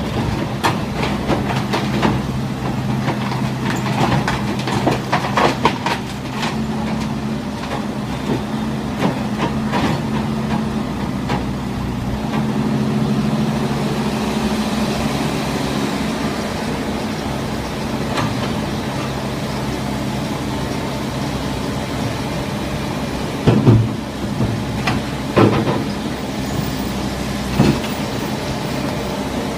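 Excavator's diesel engine running steadily, with frequent metallic clanks and knocks, most of them in the first third, and three louder knocks near the end.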